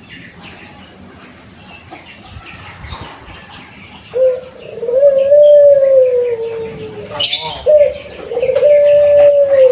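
Young puter pelung dove cooing: quiet at first with faint chirps, then a long, drawn-out, loud coo starting about four seconds in, and after a brief break near seven seconds a second long coo.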